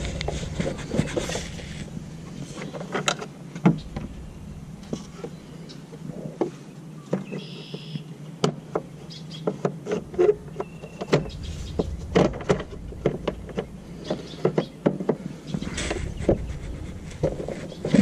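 Irregular clicks, knocks and rattles of hand work on a lawn tractor, parts and tools being handled, with a brief high squeak about halfway through. A low hum comes and goes underneath.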